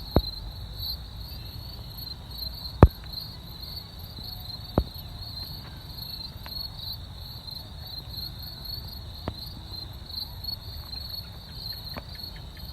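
Crickets chirping in a steady, high, pulsing trill, with a handful of sharp clicks scattered through it, the loudest about three seconds in.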